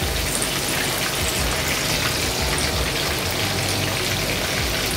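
Coated chicken pieces deep-frying in hot oil in a kadai: a steady crackling sizzle.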